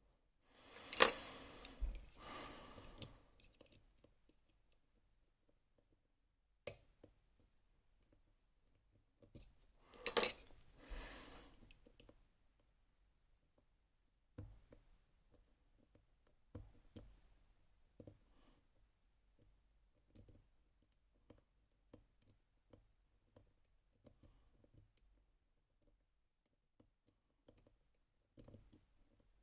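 Lock picking in an M&C Minos lock: small metallic clicks and light scrapes of the tools in the keyway, with two louder rattling, scraping spells about a second in and about ten seconds in.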